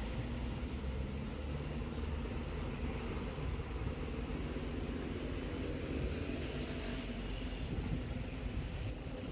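Steady low mechanical rumble of a running vehicle, with a faint steady hum over it and no sudden events.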